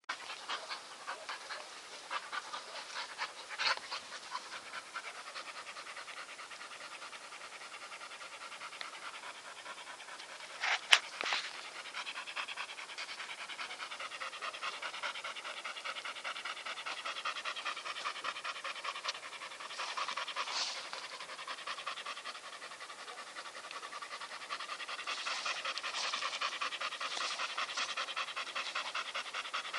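Bull terrier panting rapidly, a fast run of breath strokes throughout. About eleven seconds in comes one brief, loud, sharp sound.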